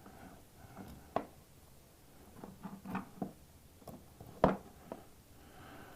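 A few scattered light clicks and knocks from handling an auto A/C hose assembly and its fittings, the loudest about four and a half seconds in.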